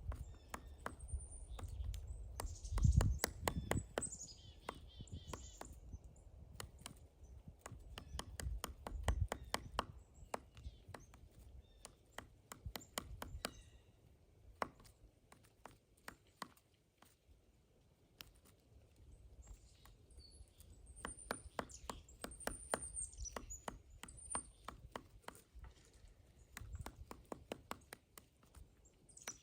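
Pileated woodpecker chiselling into a pine trunk: irregular runs of sharp wooden knocks, some close together and some spaced out, with short pauses between bouts.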